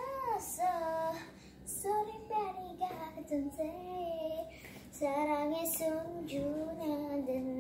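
A young girl singing by herself, one voice in short phrases that slide up and down in pitch, with no backing track heard.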